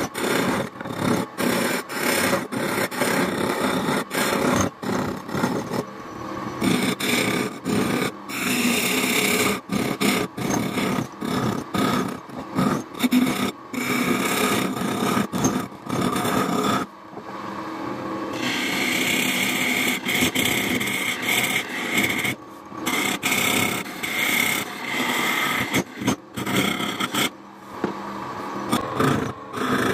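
Hand chisel cutting and scraping into wood turning on a lathe as the inside of a wooden mug is hollowed out. The scraping comes in short, repeated strokes with brief gaps. A little past the middle the cutting eases for a second or two.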